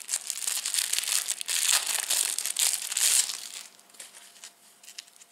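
Thin clear plastic bag crinkling as a phone case is handled and pulled out of it, busy for about three seconds, then dropping to faint handling noise.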